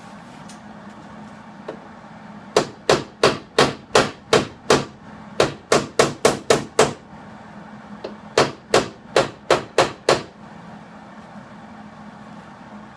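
Hammer blows on a truck's sheet-steel rocker panel, tapping it into position for welding: three quick runs of about six or seven sharp strikes each, roughly three a second.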